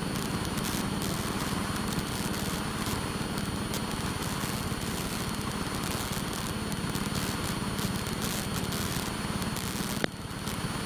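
Light aircraft's piston engine and propeller droning steadily, heard from inside the cabin, with many faint clicks over it. About ten seconds in there is a sharp click and the sound drops in level.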